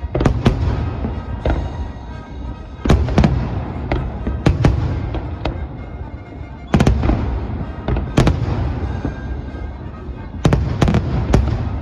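Aerial fireworks shells bursting overhead: loud sharp bangs, some single and some two or three in quick succession, each trailing off in a low rumble.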